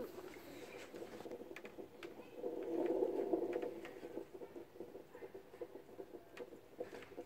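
Light taps and knocks of a toddler's hands on wooden cabinet drawers, with a louder muffled stretch of about a second and a half near the middle.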